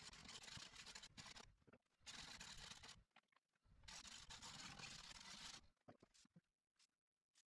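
Bowl gouge cutting a spinning green wood bowl blank on a Laguna lathe: three passes of shearing, scraping noise, each a second or two long with short breaks between. The cutting stops about five and a half seconds in, leaving only a few faint clicks.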